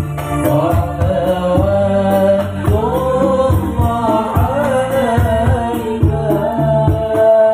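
Music: a singer's ornamented, gliding melody over a steady beat of drums and hand percussion.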